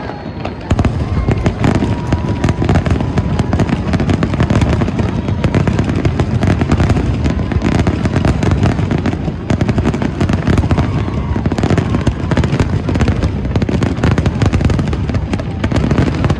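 Aerial fireworks in a dense, continuous barrage: shell bursts and crackling follow one another so fast that the bangs overlap with no gaps between them.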